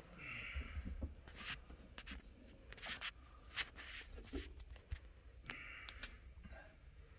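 Installation cord being pulled out through a new rubber windshield seal in short pulls, a dry rubbing sound as the cord draws the seal's lip over the pinch weld, with a few light scrapes.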